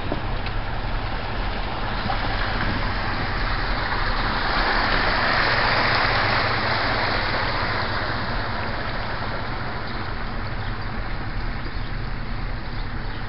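Vehicles driving slowly through shallow floodwater: a steady low engine and road hum under a rushing swish of water pushed aside by the tyres, which swells to its loudest about five to seven seconds in.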